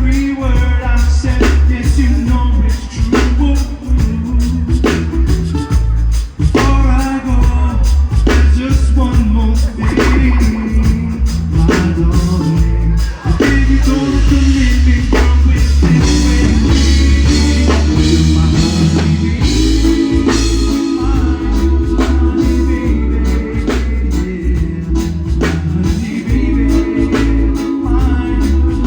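A song with singing over a heavy bass line and a steady drum beat.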